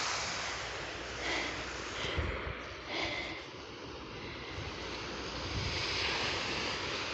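Wind gusting across the microphone, with low rumbling buffets a few times over a steady outdoor hiss.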